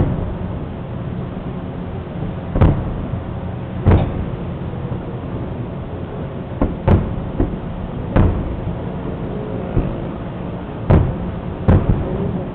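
Aerial firework shells bursting: about eight sharp booms at irregular intervals, two of them close together, over a steady low background hum.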